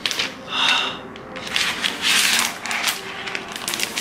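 Crinkling and rustling of the thin protective wrapping sheet being peeled off and handled on a new MacBook Pro, in several bursts, with a brief squeak about half a second in.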